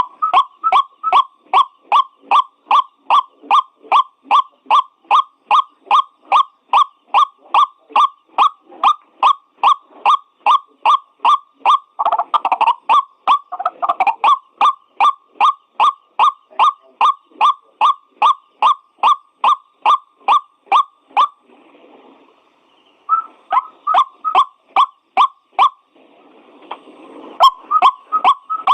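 White-breasted waterhen giving its monotonous repeated call, short notes at about two to three a second. There is a louder, rougher stretch about twelve to fourteen seconds in, and the calling breaks off briefly twice near the end.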